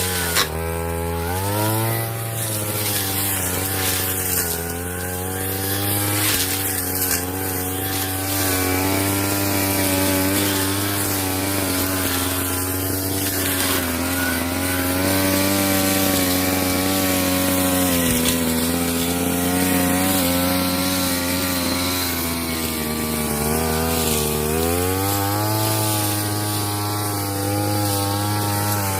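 Brush cutter engine running at high revs while mowing grass with a propeller-type blade. Its pitch drops briefly near the start and again a few seconds before the end, then climbs back as the throttle opens.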